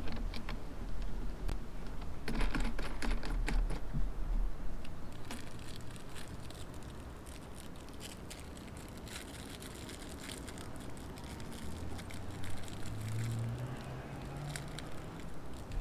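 Scattered light clicks, taps and rustles of hands handling the battery's packaging and plastic battery box, with a low rumble during the first few seconds.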